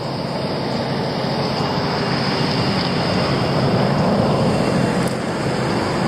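A road vehicle driving past: a steady rush of engine and tyre noise that builds to a peak about four to five seconds in, then eases a little.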